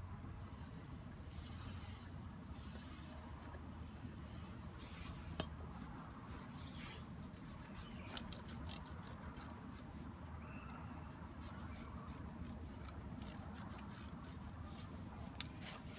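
Motorcycle drive chain being scrubbed clean, a rasping rub in repeated strokes that come quicker near the end, with one sharp click about five seconds in.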